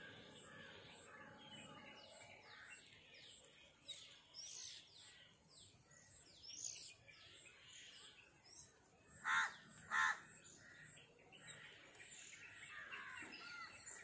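Wild birds calling in woodland: many short chirps and whistles scattered throughout, with two loud harsh calls about a second apart a little past the middle.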